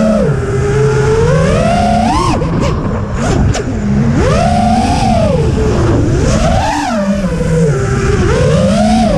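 FPV quadcopter's motors and propellers whining, the pitch rising and falling again and again over a second or two as the throttle changes, over a steady low rushing noise.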